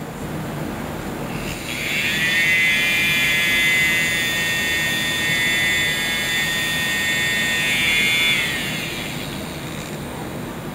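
Battery-powered miniature 3D-printed centrifugal compressor running, its small electric motor and impeller making a high whine of several close tones. The whine starts about a second and a half in, holds steady, and dies away about eight and a half seconds in.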